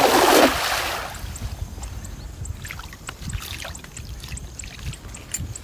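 A cast net with a weighted rim landing spread out on a pond: a loud splash of the ring of sinkers striking the water, fading within about a second into quiet rippling.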